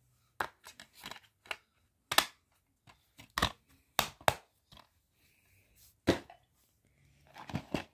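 Plastic DVD cases being handled: a case snapped shut, set down and the next one picked up, giving a string of sharp, irregular clicks and knocks. The loudest come about two seconds in and again about six seconds in.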